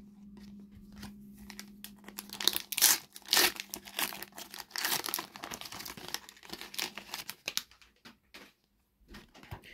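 A Panini FIFA 365 trading-card sachet being torn open by hand: the wrapper crinkles and rips in a run of short, irregular tears, and the cards inside rustle as they are handled.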